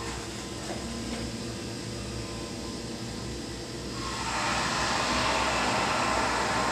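Hydraulic elevator's pump motor running behind a closed machine-room door: a steady hum, then a louder whirring rush that builds about four seconds in.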